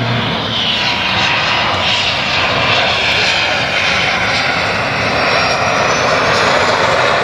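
A military jet trainer flying past: a loud, steady rush of jet engine noise with a high whine running through it. A twin-turboprop transport's low propeller hum drops out just as it begins.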